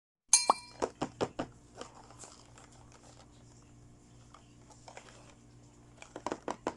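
Small clicks and taps of toy pieces and packaging being handled, a quick run of them at the start and a few more near the end, over a faint room hum.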